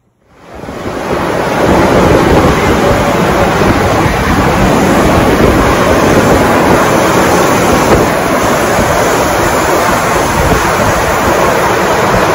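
Old belt-driven machinery running: large pulleys and a wide flat belt making a loud, steady noise that fades in over the first second or two.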